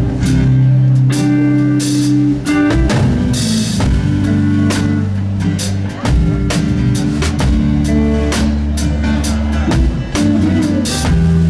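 Live band playing: a drum kit with bass drum and cymbal hits over sustained low notes and guitar.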